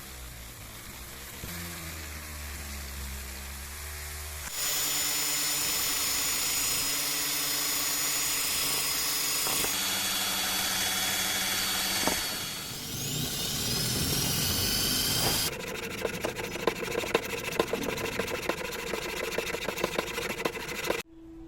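Workshop power tools running in a series of abrupt cuts: a steady machine run with a high whine, gliding tones as a tool speeds up or slows down, then a rattling run with rapid ticks that cuts off suddenly.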